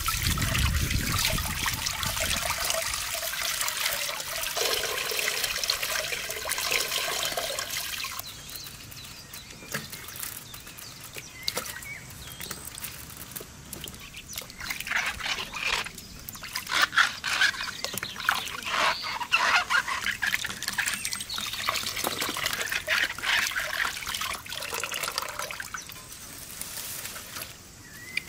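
Water poured from a clay jug through a wicker basket of cherries trickles into a metal basin for about the first eight seconds. After that come irregular splashes and swishes as hands wash fruit in the basin of water.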